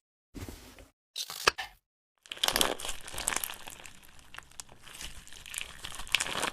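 Crisp crackling and crinkling as something is stirred and mixed, full of small pops. There are two short bursts cut off by sudden silences, then a longer unbroken stretch from about two seconds in.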